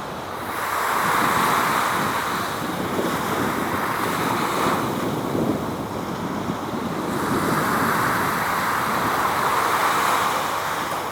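Outdoor rushing noise of wind and road traffic, swelling twice in long waves of a few seconds each.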